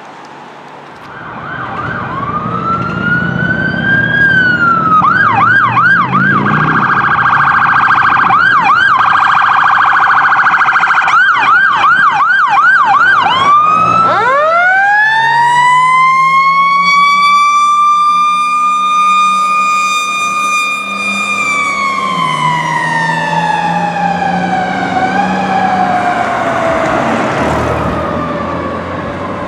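An electronic emergency siren wails up and then yelps rapidly. About fourteen seconds in, a fire engine's Federal Q mechanical siren winds up from a deep growl to its peak, holds there for a few seconds, then slowly winds down, over the rumble of the apparatus engine.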